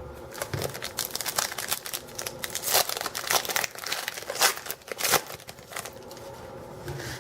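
Plastic trading card pack wrapper crinkling as it is handled and torn open, dense crackling for about six seconds, then quieter.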